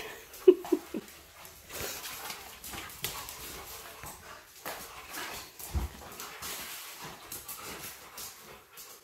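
An Alaskan malamute and a Siberian husky play-wrestling on a tile floor: a few short whining cries about half a second in, then scuffling, with a low thump a little past the middle.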